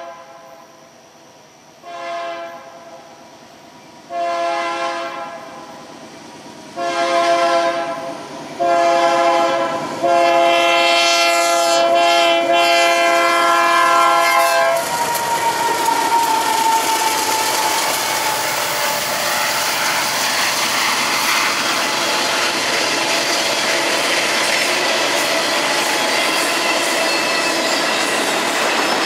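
Union Pacific AC4400CW locomotive's multi-note air horn blowing for the grade crossing: two short toots, then long, long, short, long, the last blast held until it cuts off about fifteen seconds in. Then the locomotives and autorack cars pass, with a steady loud noise of wheels on rail and clickety-clack.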